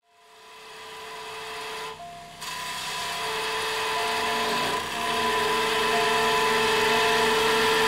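Wood lathe spinning a chair leg while a turning tool cuts a tenon on its end, a steady scraping hiss of the cut with a ringing whine. It fades in at the start and dips briefly twice as the tool eases off.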